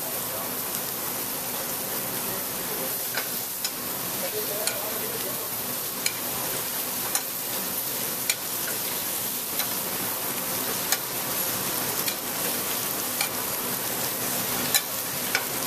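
Sea scallops searing in butter in a hot stainless steel sauté pan: a steady sizzle with occasional sharp pops and clicks as butter is added and spooned over them to baste.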